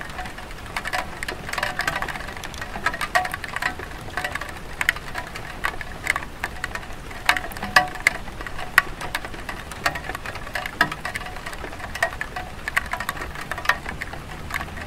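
Light rain pattering on a clay tile roof: a steady hiss under a constant, irregular run of drips and small plinks.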